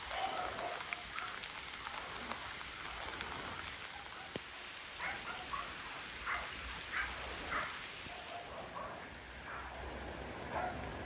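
Steady rain falling on leaves and a pond, an even hiss of drops, with a run of about five short animal calls a little past the middle.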